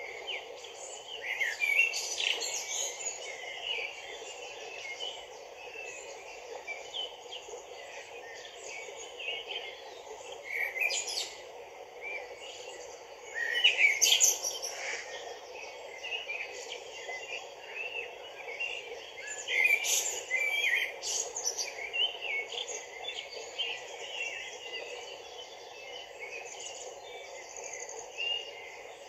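Small songbirds chirping repeatedly, with louder bursts of calls a few times, over the steady rush of a shallow stream running over stones.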